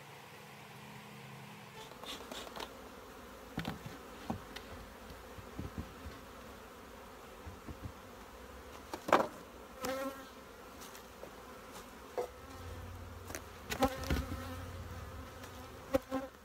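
Honey bees buzzing around open hives, with scattered sharp knocks and clicks of wooden hive boxes being handled.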